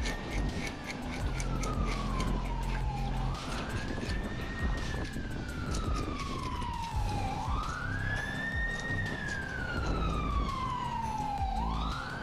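Emergency vehicle siren in a slow wail: the pitch sweeps up quickly, then sinks slowly, repeating about every four seconds, over background music.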